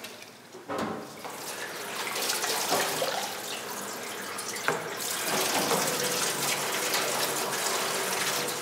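Water running from a tap into a stainless steel kitchen sink, a steady rush that starts about a second in and grows louder about five seconds in, with a sharp knock just before it does.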